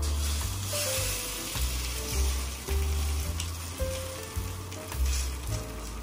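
Egg-soaked slice of bread sizzling as it fries in a hot grill pan, the hiss swelling again about five seconds in, over soft background music.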